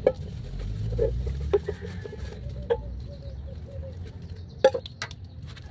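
Chickens clucking in short calls, with several sharp knocks or clinks in between, the loudest a little after four and a half seconds.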